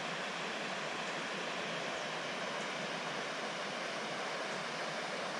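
Steady rush of a shallow river running over its rocky bed, an even hiss with no breaks.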